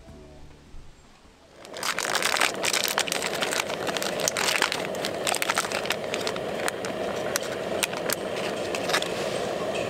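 Thin plastic snack wrappers crinkling and crackling as wrapped sweets are handled and opened, a dense run of sharp crackles starting about two seconds in.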